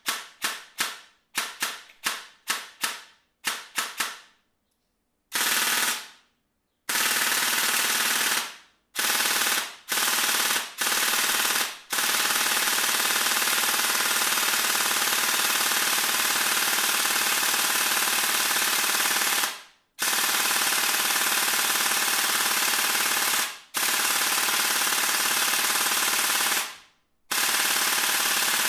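Airsoft AEG gearbox (MK Tactical CNC H92 with BJX 13:1 short-stroked gears, ASG Infinity 18k motor and an M120 spring) dry-firing out of its receiver. It fires a string of quick single shots over the first four seconds, then full-auto bursts from about five seconds in, the longest running about eight seconds. It sounds a little off, which the owner traced to a chewed bevel gear and motor pinion: the motor sits tilted in the grip and loses mesh with the bevel gear.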